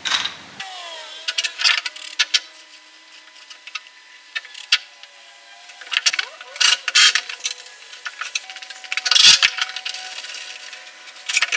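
Hand work with small wooden blocks and hand tools on a wooden boat hull: scattered sharp clicks, knocks and light rattles, with short busier clusters about six and nine seconds in.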